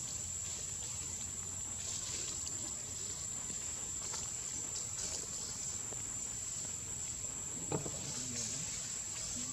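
Steady high-pitched insect drone, one unbroken note, with a single brief click about eight seconds in.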